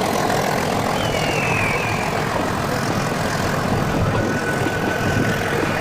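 Steady running noise of a Nilgiri Mountain Railway train. A faint high tone glides downward about a second in, and another faint high tone holds steady from about four seconds in.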